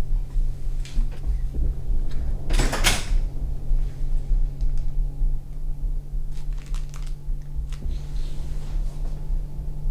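A steady low hum with one brief, loud, noisy burst of about half a second roughly two and a half seconds in, and a few faint clicks.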